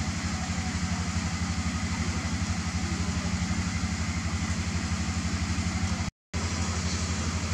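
An engine idling steadily with a fast, even low throb and a hiss over it; the sound cuts out for an instant about six seconds in.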